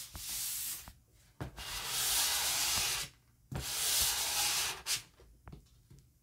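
Edge of a steel ruler scraped firmly across freshly glued paper on cardboard, three long rubbing strokes, pressing out air bubbles so the paper lies flat. A few faint clicks follow near the end.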